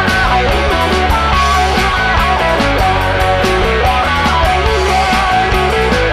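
Instrumental break in a rock song: electric guitar playing a melodic lead over bass and drums.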